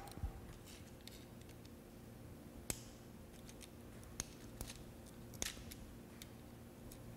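Needle-nose pliers gripping and pulling motor wire terminals off a grinder pump's start switch: a few scattered sharp clicks, the loudest nearly three seconds in.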